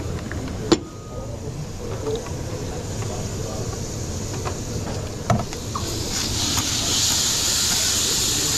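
Kitchen sounds: two sharp knocks, one under a second in and one about five seconds in, over a steady low rumble. About six seconds in, a hissing sizzle of food frying in a hot pan swells up and holds.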